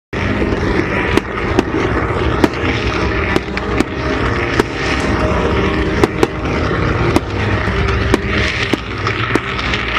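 Fireworks display: a steady, dense rumble with sharp cracks and bangs going off irregularly, about one or two a second.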